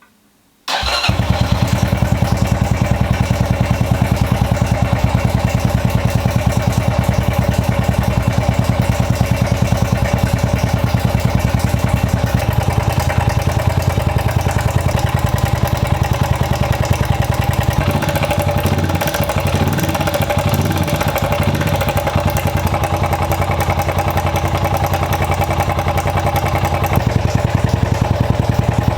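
Honda FTR223's air-cooled single-cylinder engine catching suddenly about a second in and then idling with an even beat, its speed wavering for a few seconds later on. This is the first run after a top-end rebuild, with the bad abnormal engine noise that the owner went on to cure by replacing the cam chain tensioner and adjusting the valve clearances.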